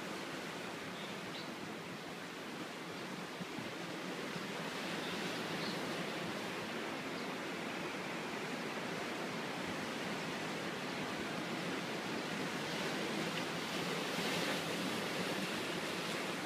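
Ocean surf breaking and washing over a black lava-rock shoreline: a steady rush of noise that swells a little near the end.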